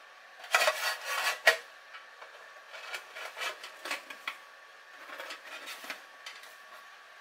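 Aluminium mess tin lid scraping and clattering as it is fitted onto the tin, with a sharp metal clack about a second and a half in. Then two spells of lighter scraping as a hand works the lid into place.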